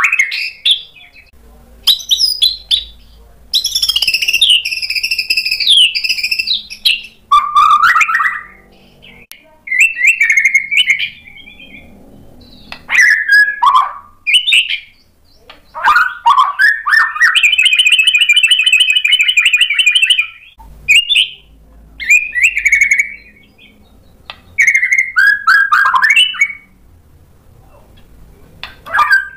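Caged white-rumped shama (murai batu) in full song: loud, varied whistled and warbled phrases of a second or two each with short pauses between, and a long, fast repeated trill about the middle.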